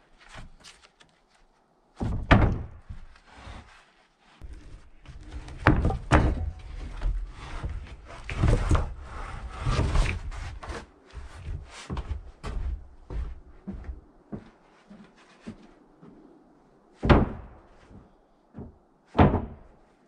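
Sawn wooden boards being handled and dropped, giving sharp wooden knocks and clatter: a loud knock about two seconds in, a run of knocks and clattering through the middle, and two more sharp knocks near the end.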